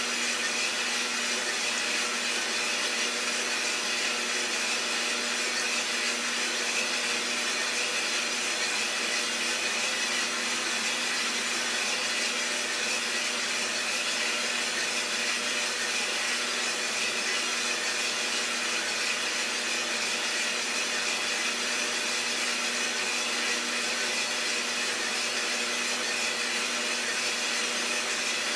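Iroster600 home coffee roaster running: the steady whir of its motor and fan with a constant hum, unchanging throughout.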